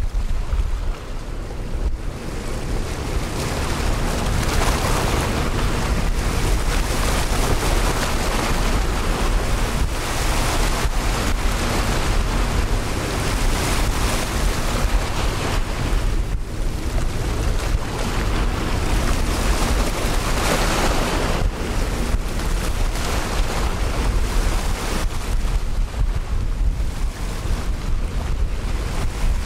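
Strong wind buffeting the microphone: a steady rush with a deep, gusting rumble that swells and eases every few seconds.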